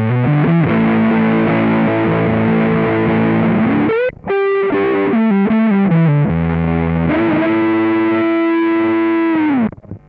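Electric guitar played through an Electro-Harmonix Big Muff Pi fuzz pedal, set with sustain full up and tone turned fully to the left (the bassy side). It plays heavily fuzzed, sustained notes, with a slide up about four seconds in, then a long held note with slight bends that stops sharply near the end.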